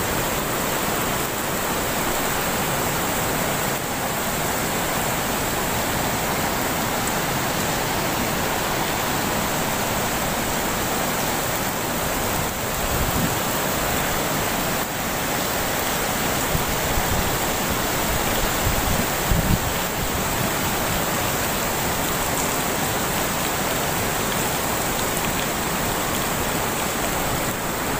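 Steady rush of shallow river water flowing fast over a flooded causeway, with a few brief low thumps about 13 and 19 seconds in.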